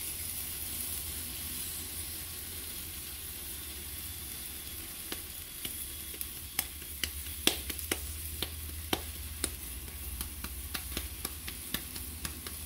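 A gordita and a nopal paddle sizzling steadily in a frying pan. From about five seconds in, hands pat a ball of masa flat, a quick, irregular run of sharp slaps.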